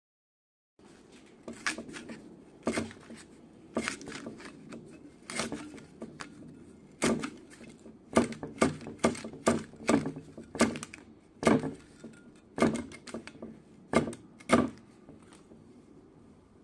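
Homemade shear made of two old circular saw blades snipping through a paper sanding disc: a series of sharp snips, spaced out at first, then coming about two a second from about eight seconds in, stopping shortly before the end.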